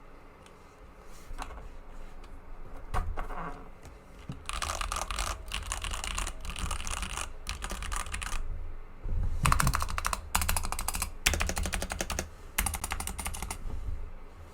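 KBD67 Lite mechanical keyboard being typed on: a few scattered keystrokes at first, then fast runs of typing in three bursts with short pauses between them.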